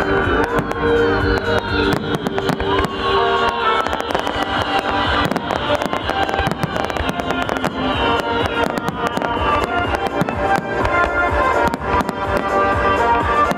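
Fireworks going off in rapid succession, dense cracks and bangs throughout, over music with long held notes.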